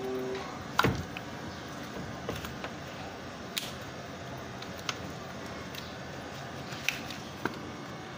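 Scattered clicks and knocks of hands and tools working at a car battery, with one louder knock about a second in.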